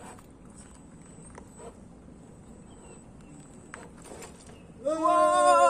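A long, wavering animal bleat begins near the end and holds for about a second and a half, its pitch dipping slightly at the start.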